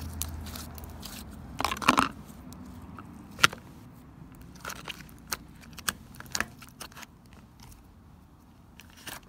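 Freshly activated glitter slime being squeezed and poked in a plastic tub, making sticky clicks and crackles. A louder squelchy burst comes about two seconds in, a sharp click a little after, and smaller clicks follow; the slime is still a little sticky.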